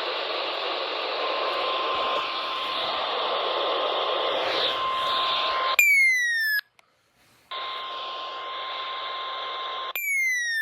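Weather radio receiver hissing with static, a steady mid-pitched tone running through the hiss. About six seconds in, a short electronic chirp falls in pitch and the static cuts out briefly. The static and tone return, and a second identical falling chirp sounds near the end.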